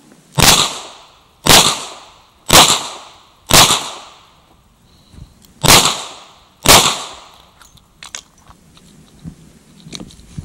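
Six shots from a .38 Special Chiappa Rhino revolver. Four come about a second apart, then after a pause of about two seconds two more follow, each with a short ringing tail. Faint clicks and knocks follow near the end.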